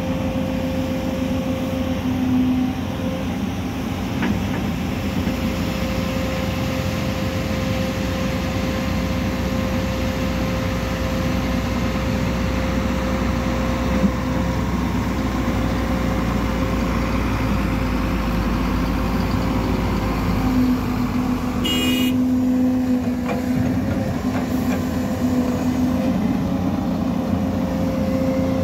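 Steady diesel engine noise from heavy earthmoving machinery, a dump truck and a crawler excavator working, with a steady hum throughout and a short click about three quarters of the way through.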